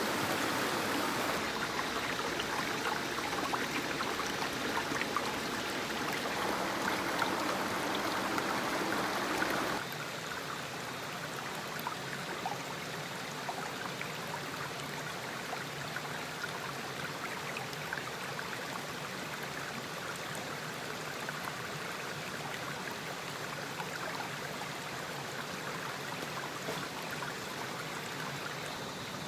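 Stream water running with a steady rush; it turns quieter about ten seconds in and stays even after that.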